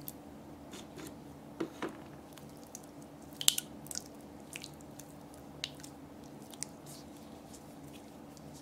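Green toy slime squeezed and kneaded by hand, giving scattered wet squelches and small pops, the loudest about three and a half seconds in, over a steady low hum.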